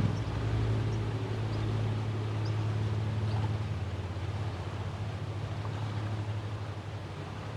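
Auer NDS7 motor siren running down after its test signal: a low hum whose upper tones die away while the level sinks steadily.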